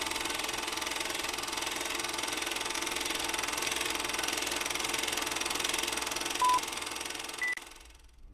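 Film projector sound effect: a steady mechanical whir and clatter. A short beep comes about six and a half seconds in and a higher beep about a second later, counting down, and then the running noise fades out.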